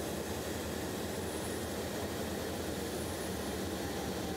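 Steady jet engine and rushing airflow noise of an aircraft in level flight, recorded on board the chase plane.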